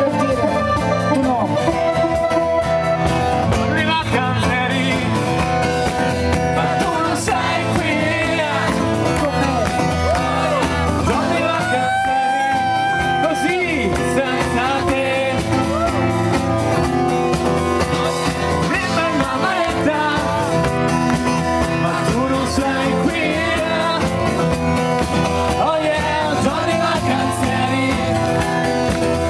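A pop-rock band playing a song live, amplified, with a steady beat and no lyrics transcribed for this stretch. A single held note stands out about twelve seconds in.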